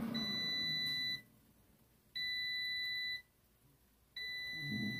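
Power XL air fryer's end-of-cook alert: three steady electronic beeps, each about a second long with about a second between them, signalling that the cooking time has run out.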